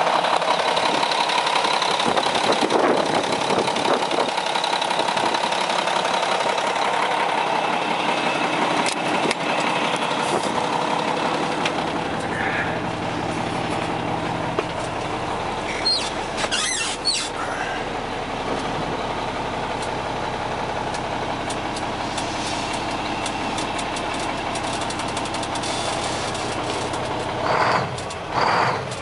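Diesel engine of a 1998 Mack CH612 truck tractor idling steadily at about 800 rpm. It is heard close up at the open hood at first, then more muffled from inside the cab from about twelve seconds in, with a few clicks a little past halfway.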